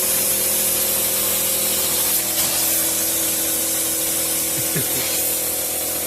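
Steady spraying hiss of compressed air blowing through, with a faint steady hum underneath and a few light knocks near the end.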